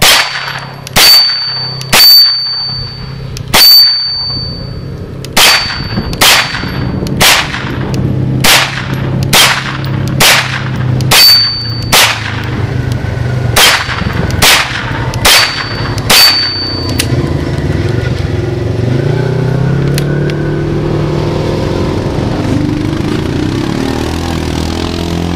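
Kel-Tec Sub2000 Gen 2 9mm carbine firing about sixteen single shots at a pace of roughly one a second, several of them followed by a short metallic ding. About seventeen seconds in the shooting stops and a four-wheeler's engine runs and revs in the background.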